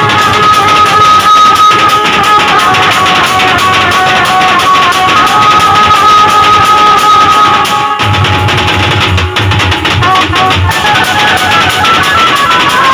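Loud music with a regular beat and a held melody, with a brief break about eight seconds in.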